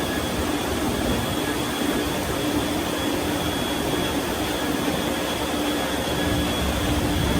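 Large ventilation fans in a grain storage facility running steadily: a loud, even whoosh with a low hum and a thin high whine, pulling cool air in over the grain. It cuts off suddenly at the end.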